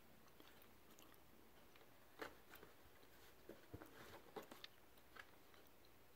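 Faint scattered crackles and scratches of a cat moving about inside a cardboard box, clustered about two seconds in and again a little past the middle.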